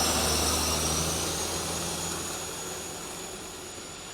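Aircraft engine with a high whine slowly rising in pitch over a steady low hum, the whole sound fading gradually.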